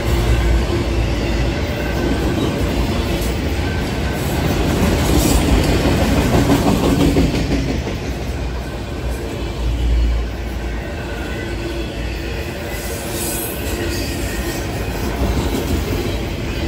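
Freight train of loaded autorack cars passing close by, its wheels running steadily on the rails with a continuous rumble.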